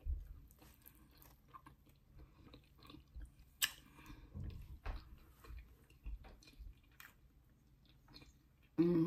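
A person chewing and biting food close to the microphone, with scattered small mouth clicks and one sharper click about three and a half seconds in.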